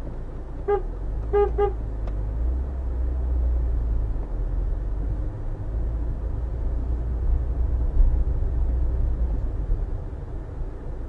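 Three short car-horn toots, one and then two in quick succession, over the steady low rumble of a car's engine and tyres heard from inside the cabin as it moves slowly.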